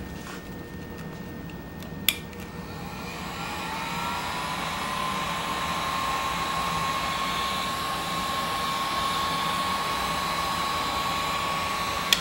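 Heat gun clicked on about two seconds in, its fan spinning up into a steady rush of air with a whine that climbs and then holds one pitch, blowing hot air to shrink heat-shrink tubing over a soldered wire splice. It cuts off with a click near the end.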